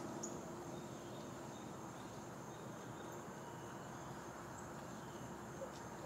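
Woodland ambience with a steady, high-pitched insect chorus trilling without a break.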